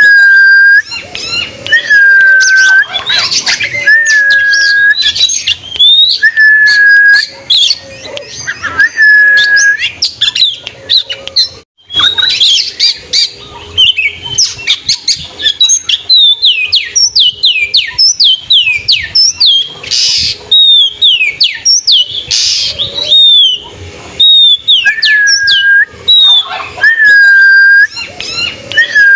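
Oriental magpie-robin (kacer) singing loudly. Long held whistles repeat about every two seconds, each followed by rising notes. In the middle the song breaks briefly into a fast run of falling sweeping notes and two harsh scratchy bursts.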